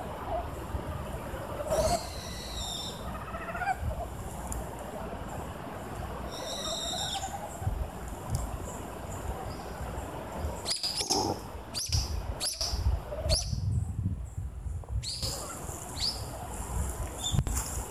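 Calls of a wild animal the uploader could not identify: a call falling in pitch about two seconds in, a higher call about seven seconds in, then a run of short, sharp calls in the second half, over a low rumble.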